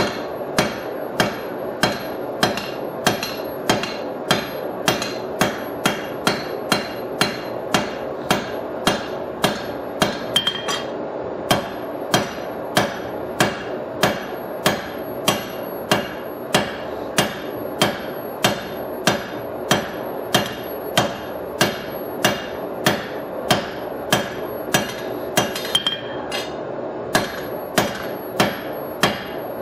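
Hand hammer striking hot leaf-spring steel on an anvil at a steady rhythm of about two blows a second, drawing out a thick knife blank. There are short pauses about 11 and 26 seconds in.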